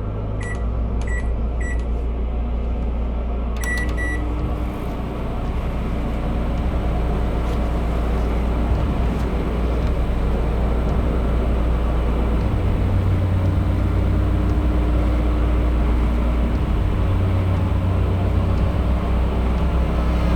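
Microwave oven keypad beeping three times, then a longer beep about four seconds in, followed by the oven running with a steady low hum.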